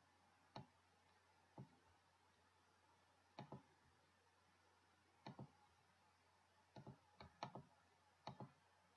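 Computer mouse button clicking: faint, irregular single clicks and quick pairs, about a dozen in all, over a faint steady hiss.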